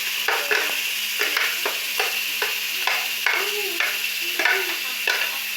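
A spoon stirring shredded chicken in a frying pan over a steady sizzle, scraping the pan in repeated irregular strokes about two or three times a second.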